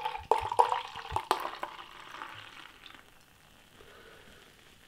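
Imperial stout glugging in irregular bursts from a two-pint swing-top glass bottle into a glass, the pour ending after about a second and a half. Then the fresh foam head fizzes and fades away.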